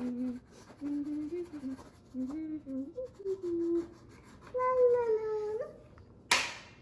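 A young child humming or vocalising a wordless tune in short bending notes, ending with a longer, slightly falling note, over the light scratching of a crayon on paper. A brief loud rush of noise comes near the end.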